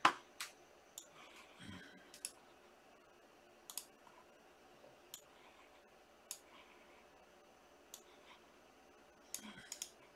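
Trading cards being handled, making short sharp clicks at irregular intervals, roughly one a second, the loudest right at the start and a quick run of several near the end.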